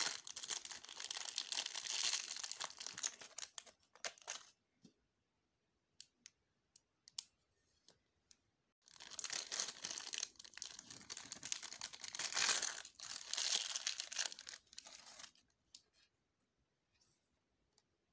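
Clear plastic packaging crinkling and crackling as it is handled and pulled open, in two long stretches of a few seconds each, with scattered light clicks and taps between them and near the end.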